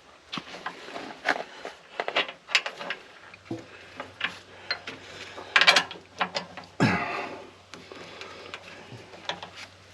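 Irregular metal clicks and knocks of hand tools and fittings being worked while a hydraulic hose is fitted on a skid steer. A low steady hum comes in after about three and a half seconds.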